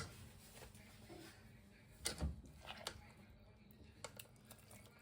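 A few faint, separate knocks and clicks over a quiet background, the clearest about two seconds in.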